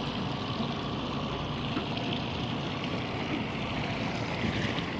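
Boat motor running steadily, a constant low hum under the rush of water along the hull.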